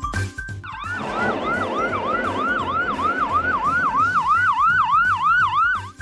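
Ambulance siren sound effect, a fast wailing tone that rises and falls about three times a second over a rushing noise. It starts about a second in and cuts off just before the end.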